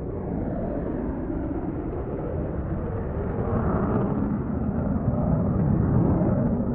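Airplane engine noise at an air show: a steady, even rumble that grows slowly louder as the aircraft approaches.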